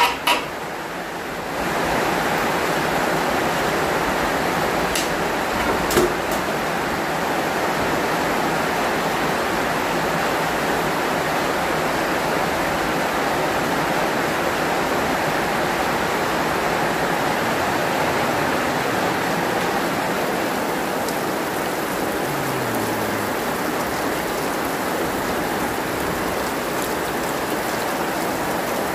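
Heavy rain falling steadily, a dense, even hiss. A couple of sharp knocks come near the start and about six seconds in.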